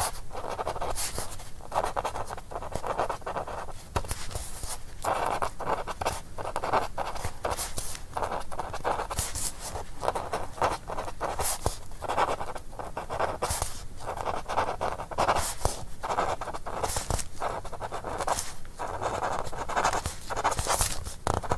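Dry feather quill scratching across parchment, writing scribbles and numbers in short bursts of strokes with brief pauses and sharp ticks between them.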